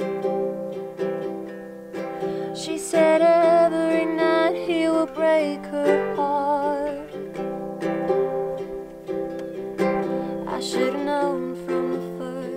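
A woman singing a slow song while playing a ukulele. The ukulele chords run on their own for the first couple of seconds before her voice comes in, and the voice drops out for a while before returning near the end.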